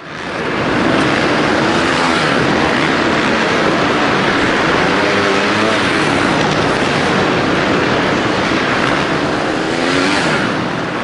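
Several off-road dirt bike engines revving up and down over and over as riders work through log and rock obstacles, over a dense, steady wash of arena noise.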